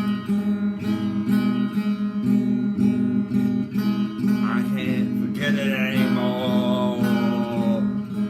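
Acoustic guitar strummed in a steady, even rhythm, with a held, wavering vocal line sung over it in the second half.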